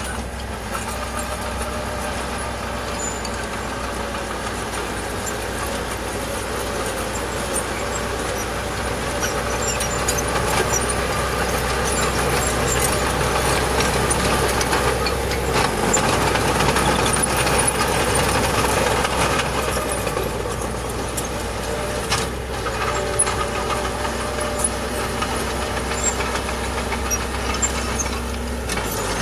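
Diesel engine of heavy earthmoving machinery running steadily, growing louder through the middle and easing off again.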